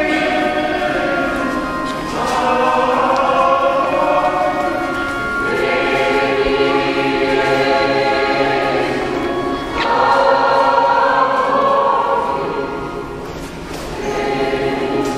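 Choir singing a slow hymn in long, held phrases of a few seconds each, with short breaks for breath between them.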